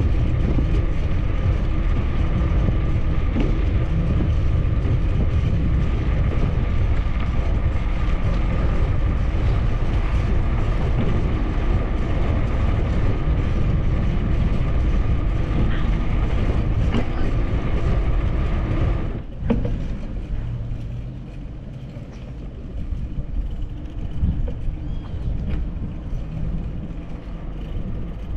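Steady rumble of wind buffeting and tyre noise picked up by a bicycle-mounted camera's microphone while riding on a paved bike path, with a faint steady high hum. About two-thirds of the way through it drops suddenly to a quieter, lighter rumble.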